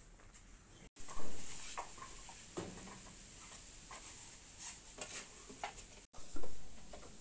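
Unfired clay plates and bowls clinking, knocking and scraping against one another as they are handled and stacked into a kiln, a run of light clicks. The sound drops out briefly about a second in and again near the end, and each time a louder knock follows.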